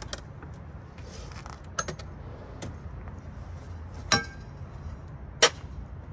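Metal clinks and clanks from handling a stainless camp stove and a carbon steel griddle: a few light clicks, then a sharp ringing clink about four seconds in as the griddle comes out of its drawer, and a louder clank a little over a second later as it is set down on the stove.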